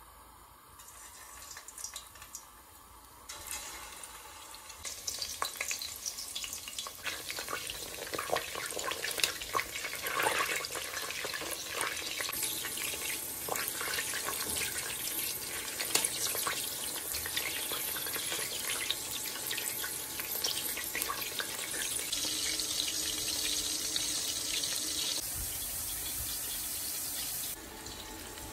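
Keema-stuffed bitter gourds sizzling and crackling as they fry in hot oil in a stainless steel pot, turned with a metal spoon. The sizzle builds up a few seconds in.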